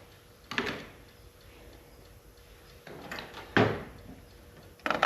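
A few separate knocks and clatters of metal tools and engine parts being handled, the loudest about three and a half seconds in.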